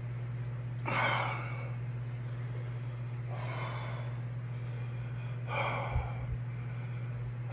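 A man's heavy, gasping breaths, three of them about two seconds apart, as he suffers the burn of superhot chocolate Primotalli peppers in his mouth.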